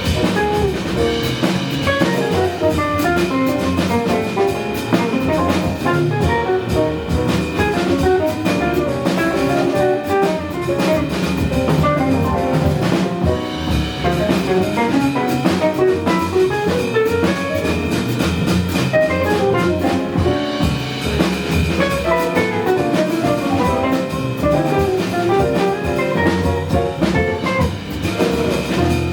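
Live jazz combo playing, with a drum kit keeping time under fast-moving melodic lines from the band's saxophone, guitar, piano and bass.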